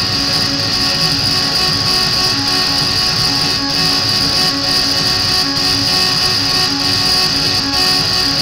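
Live electronic noise music: a loud, unbroken wall of hiss with a bright high band, over a low throbbing tone that pulses a few times a second.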